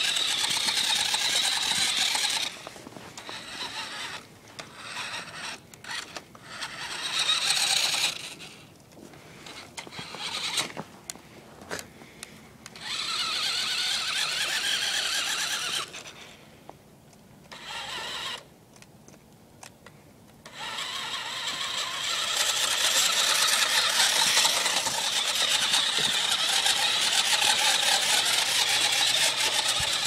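Toy remote-control ATV's small electric motor and plastic gearbox whining in spurts as the throttle is worked, with choppy starts and stops, a quiet gap past the middle, and a long steady run near the end. The owner thinks its battery is running down.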